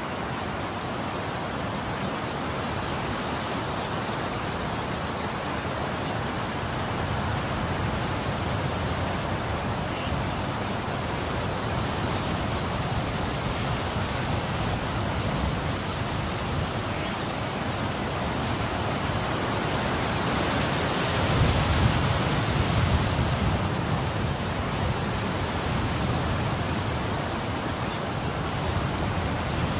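Winter storm noise of wind and wet snow: a steady hiss that swells about twenty seconds in, with a deeper rumble under it.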